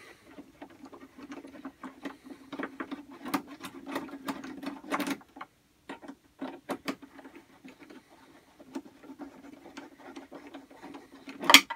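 Screwdriver backing small screws out of a 3D-printed plastic droid frame: quick, irregular clicks and scratches of the driver tip and threads, with a faint low hum behind and one brief louder sound near the end.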